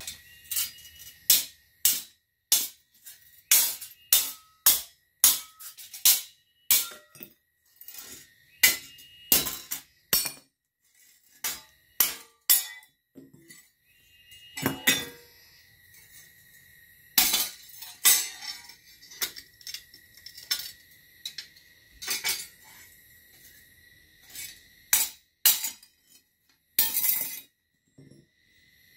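Hammer blows on steel: a long run of sharp metallic strikes, each ringing briefly, coming irregularly about one or two a second with short pauses between runs.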